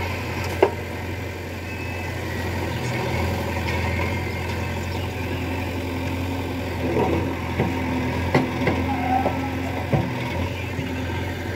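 JCB backhoe loader's diesel engine running steadily as the backhoe digs wet mud, with a few sharp knocks, about one second in and again several times in the second half.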